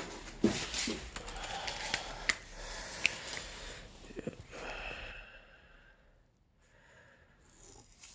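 Plastic wrapping being handled, rustling and crinkling with small clicks, dying away about five seconds in.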